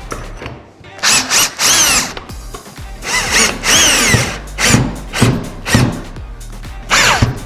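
Power drill running in about seven short bursts, each winding up and then falling in pitch as it stops, plausibly driving in the screws for a door latch plate.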